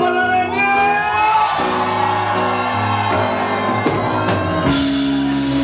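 Live band music: a held sung note in the first second or so gives way to sustained keyboard chords, with a sudden crash and a new held chord near the end.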